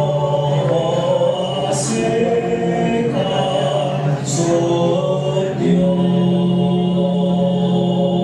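Chant-like singing that accompanies a dance: long held notes that move in steps from one pitch to the next.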